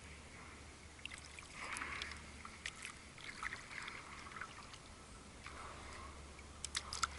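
Stand-up paddleboard paddle strokes in calm water: the blade dips and pulls with small splashes and drips, a stroke about every two seconds.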